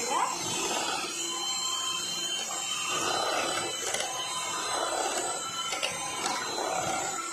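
Electric hand mixer running steadily, its twin wire beaters churning thick custard cake batter in an enamel bowl.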